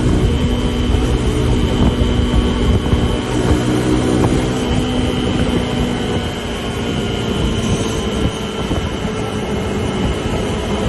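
Suzuki DR150's single-cylinder four-stroke engine running steadily under way, its even note mixed with heavy road noise.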